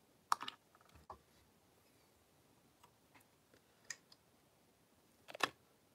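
A handful of short, light clicks and taps from fly-tying tools being handled at the vise, the sharpest one shortly after the start and another near the end.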